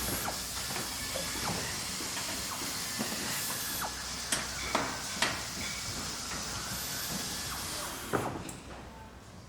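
Factory background ambience: a steady machine hiss and hum with scattered sharp knocks, most of them between about three and five and a half seconds in. The hiss drops away and the sound grows quieter shortly before the end.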